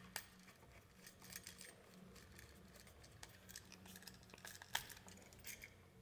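Faint scattered clicks and light rustles of a wall switch and its wire being handled at the wall box, with one sharper click near the end.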